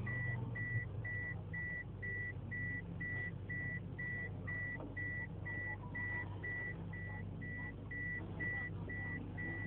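Mazda MX-3's turbocharged BP engine idling, heard from inside the cabin, under a high electronic beep that repeats steadily about twice a second.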